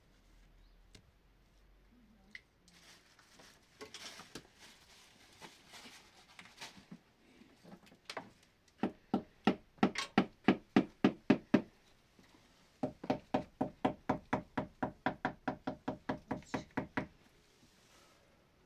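A hammer striking in rapid, even blows, about four a second, in two runs of roughly three and four seconds, with a few scattered knocks before them.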